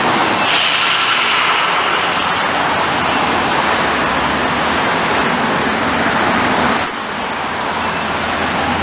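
City street traffic with an MTA transit bus approaching. A high whine rises over the traffic about half a second in and lasts a couple of seconds. Near the end the bus's engine drone grows louder as it draws close.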